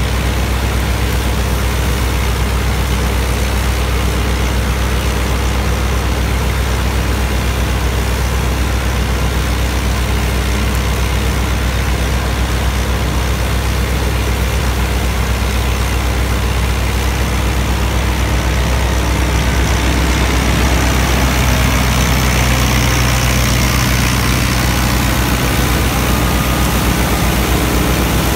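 New Holland Dabung 85 tractor's 85 hp four-cylinder diesel engine running steadily under load, driving a wheat-straw chopper through the PTO shaft, with the chopper's running noise over the engine hum. The sound grows a little louder about two-thirds of the way through.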